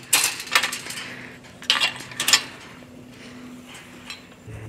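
Metal chain-link gate and its pipe-frame latch rattling and clanking as it is handled: two clanks close together near the start, then two more about two seconds in.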